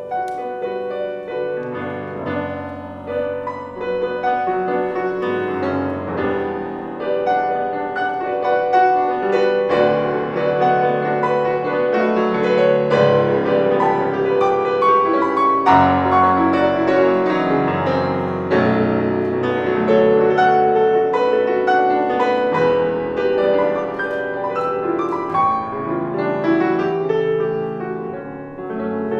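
Solo grand piano playing a classical piece in dense, fast-moving notes. It grows louder about four seconds in and eases off near the end.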